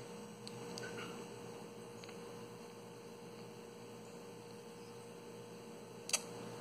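Quiet room tone: a low steady hum with one faint held tone, and a single short click about six seconds in.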